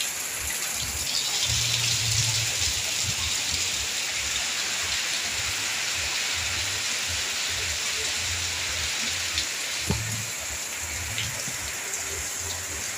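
Heavy rain pouring down steadily, a dense even hiss of falling water, with two sharp drop taps about nine and ten seconds in.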